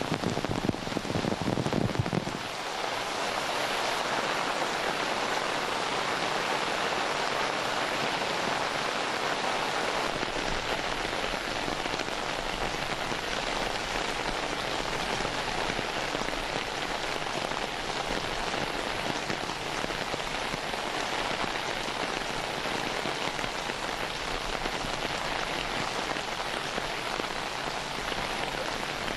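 Steady hiss of heavy rain falling, with a louder, deeper rush in the first two seconds that cuts off suddenly.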